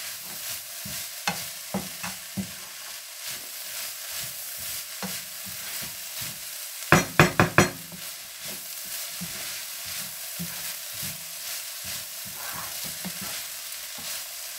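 Vegetables and chicken sizzling in a frying pan while a wooden spatula stirs and scrapes through them. About seven seconds in come four quick, loud knocks.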